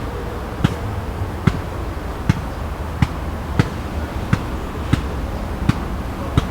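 Footsteps at a steady walking pace, about one every three-quarters of a second, with a low rumble underneath.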